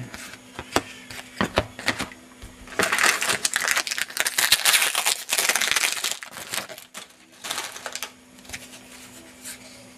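Trading cards and their packaging handled by hand: scattered clicks and taps, with a stretch of crinkling and rustling from about three to six seconds in.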